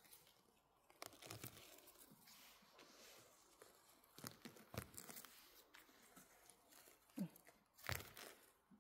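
Quiet, scattered crackling and rustling of twigs and dry forest litter, with a few sharper snaps, the loudest near the end.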